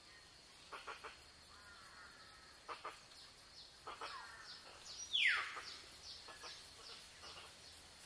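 Jungle birds calling: groups of short repeated calls, and about five seconds in the loudest, a call sliding steeply down in pitch. Underneath runs a faint steady high insect buzz with rapid high ticking.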